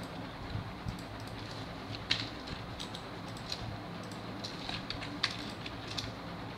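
Scattered clicks of a computer keyboard and mouse being operated, two of them sharper than the rest, about two and five seconds in, over a steady low hum.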